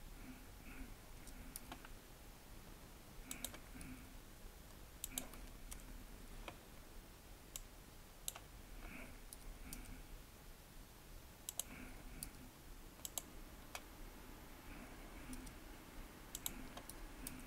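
Sparse, irregular clicks of a computer mouse and keyboard, a few every couple of seconds, some in quick pairs.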